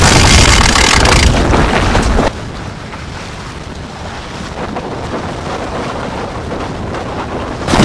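Wind buffeting the microphone over the rush of water along the hull of a small sailing boat under way. The wind noise drops away suddenly a little over two seconds in, leaving a quieter steady wash of water and wind.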